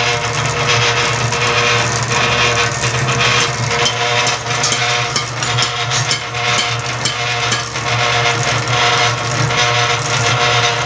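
Electric-motor-driven half-bag chain-type mortar mixer running: a steady hum from the motor and belt drive, with irregular rattling clicks throughout.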